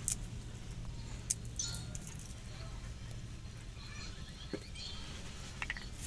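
A few faint, scattered clicks and taps from a knife while garlic and onion are peeled and cut by hand, over a low steady background hum.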